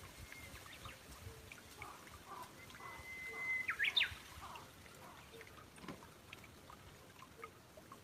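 A bird calling: a clear, level whistle held for under a second, then a few quick shrill notes sweeping up and down, about halfway through. Fainter chirps come and go around it.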